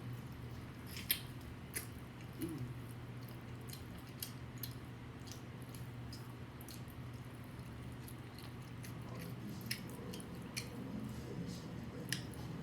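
A person chewing food close to the microphone, with sharp mouth clicks at irregular intervals over a steady low hum.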